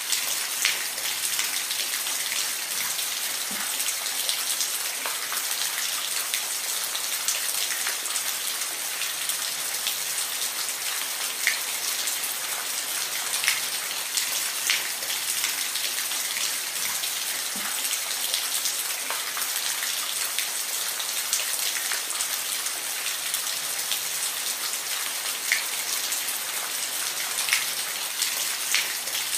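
Steady rain, a dense high hiss with individual drops ticking sharply here and there.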